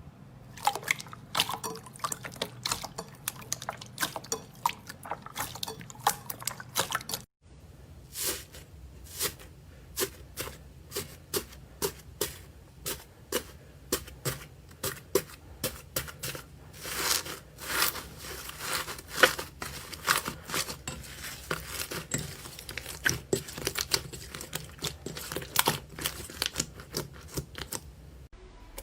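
Slime being squished and worked by hand, a continuous irregular run of wet, sticky clicks and pops, with a brief gap about seven seconds in.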